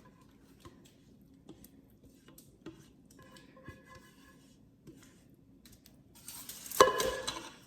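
Kitchen handling sounds: faint clicks and scrapes of utensils, then near the end a louder rustling of plastic wrap and one sharp, briefly ringing clink of a utensil against cookware.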